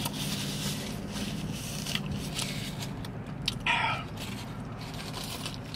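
A person chewing a burger and wiping his face with a paper napkin, soft rustling and small clicks of mouth and paper, with a brief hummed vocal sound a little before four seconds in. A steady low hum sits under it all.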